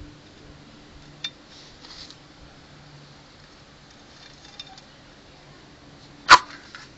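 A sharp click or knock about six seconds in, with a few fainter clicks before it, over a faint steady hum.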